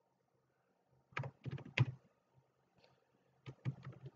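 Computer keyboard keys being typed: two quick runs of keystrokes, about a second in and again near the end.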